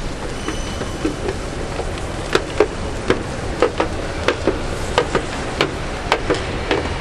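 Footsteps clicking sharply on a hard floor, starting a couple of seconds in at about two or three steps a second in uneven pairs. They sound over the steady background hum of a large station concourse.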